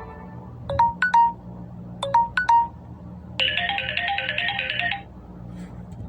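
Samsung Galaxy Tab S4 ringtone playing: two quick three-note phrases, then a busier run of notes lasting about a second and a half, which ends about five seconds in.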